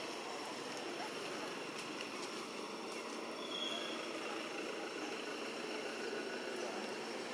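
Steady outdoor background noise, like distant traffic, with faint steady high tones above it and a short high chirp about three and a half seconds in.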